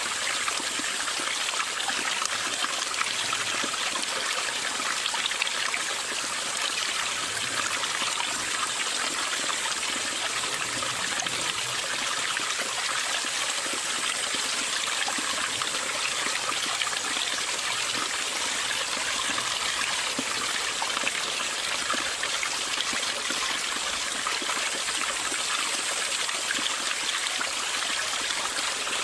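Mountain stream flowing over rocks, a steady babbling and trickling of water.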